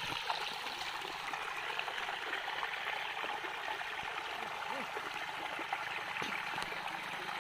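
Irrigation water running steadily through a small cut in an earthen paddy-field bund, spilling into a shallow grassy channel.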